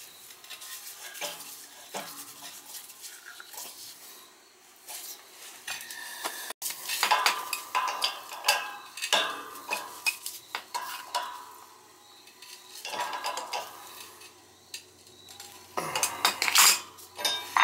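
Metal hand tools and steel pipe clinking and scraping against each other while pipe is set into a cast iron radiator's inlet fitting: irregular sharp clinks and rasping scrapes, with the busiest, loudest clatter about seven seconds in and again near the end.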